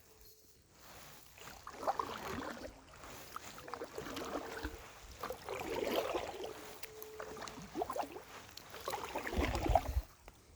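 Water splashing and sloshing in surges about every two seconds, with a low rumble near the end.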